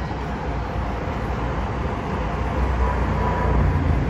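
Stationary light-rail train at a platform, its onboard equipment humming with a steady low rumble that swells a little about three seconds in.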